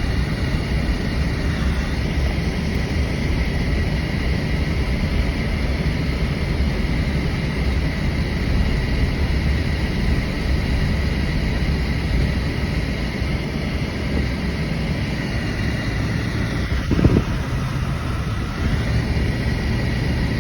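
A vehicle driving, heard from inside: a steady low rumble of engine and road noise. There is one short knock about 17 seconds in.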